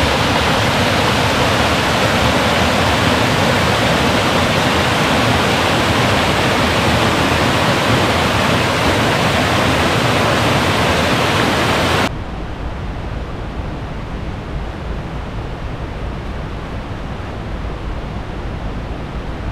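Waterfall rushing as a loud, even wash of noise. About twelve seconds in it cuts abruptly to a quieter, duller rush with more low rumble.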